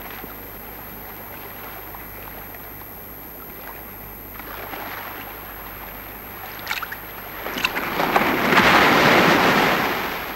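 Shallow sea water washing over sand. A couple of sharp splashes come about two-thirds of the way in, then a louder surge of rushing water swells near the end and cuts off suddenly.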